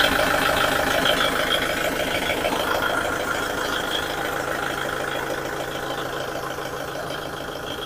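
Kubota MU5502 tractor's four-cylinder diesel engine idling steadily just after being started, growing gradually fainter.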